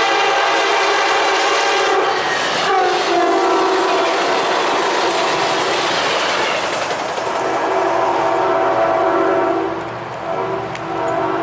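North Carolina passenger train's diesel locomotive sounding its multi-chime air horn in a long blast that drops in pitch about three seconds in. The horn breaks off briefly near the end and then sounds again. Under it, the engine and wheels run past on the rails.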